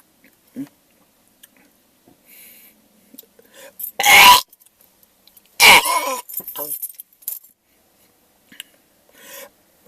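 A person choking on spit that went down the wrong way, with two harsh, loud coughing bursts about four and six seconds in and smaller splutters and gasps around them.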